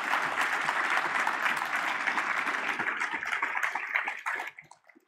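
Audience applauding, a dense clatter of many hands clapping that thins to a few scattered claps and dies away about four and a half seconds in.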